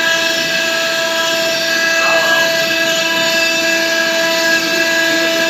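CNC router and lathe machine running at a steady speed: a constant whine of several held tones over a mechanical hiss.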